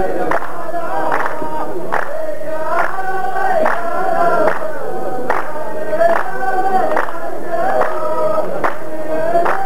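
Row of men chanting a qalta verse together in long, drawn-out notes, clapping in unison a little faster than once a second to keep the beat.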